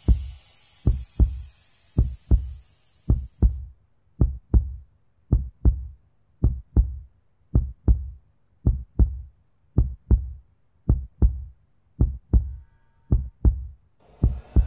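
Heartbeat sound effect: slow, steady double thumps (lub-dub), a little under one beat a second. A high hiss stops abruptly after about three and a half seconds, and near the end a rising whooshing swell comes in.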